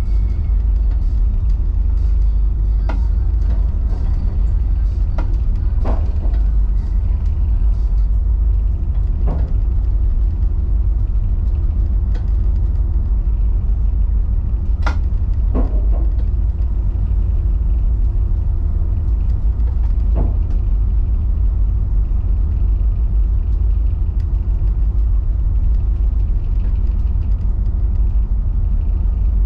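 Steady low engine drone of an escort tug, heard inside its wheelhouse while towing. Now and then a sharp click or knock comes through it.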